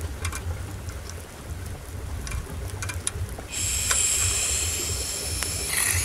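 Small campfire of dry twigs crackling as it catches, with wind rumbling on the microphone. About three and a half seconds in, a high steady buzz starts and carries on to the end.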